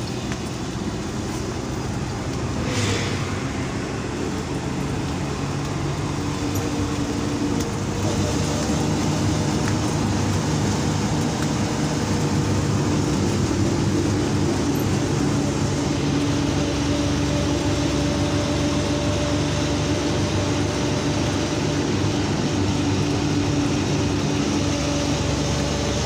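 Road vehicle driving along a road: steady engine drone with tyre and road noise and a few steady humming tones, getting a little louder about eight seconds in.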